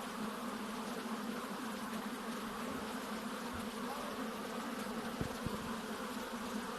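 Many honey bees buzzing together in a steady, unbroken hum, with a couple of faint low knocks about five seconds in.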